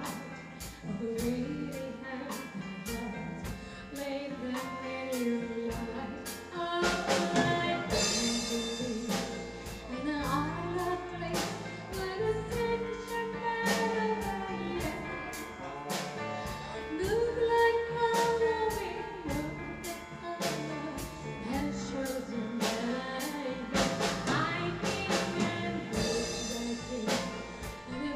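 Live band performance: a female lead vocal sings a slow melody over electric bass, drum kit, keyboard and guitar, with a steady drum beat and cymbal crashes.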